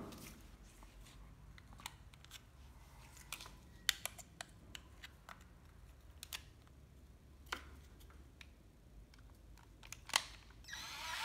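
Scattered faint clicks and taps as a cordless drill is handled. Near the end, the Ryobi 12V cordless drill/driver's motor starts up and rises in speed.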